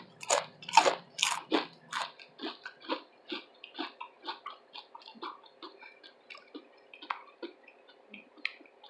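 A person chewing a mouthful of loaded chilli cheese slaw veggie dog with wet, crunchy mouth sounds, about two to three chews a second, loudest in the first couple of seconds and then softer.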